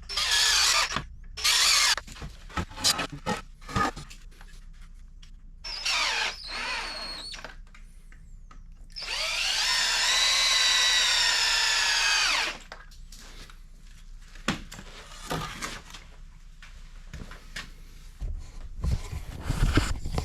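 Power drill running in several bursts: two short ones at the start, another about six seconds in, then one long run of about three and a half seconds, followed by scattered knocks and clicks.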